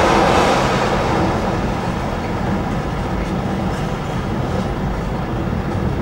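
A freight train of loaded intermodal container wagons rolling past, a steady rumble of wheels on rail that eases slightly over the first couple of seconds.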